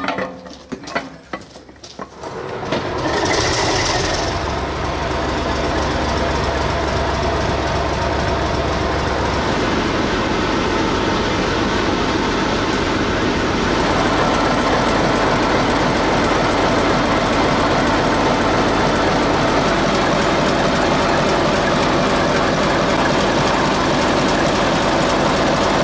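English Electric diesel engine of a Di-class locomotive starting up about two and a half seconds in, after a few light metallic clicks, with a short hiss as it catches, then running steadily, a little louder from about halfway through.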